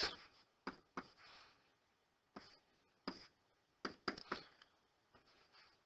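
Faint, scattered clicks and taps of a stylus writing on a tablet screen, about seven short taps spread irregularly.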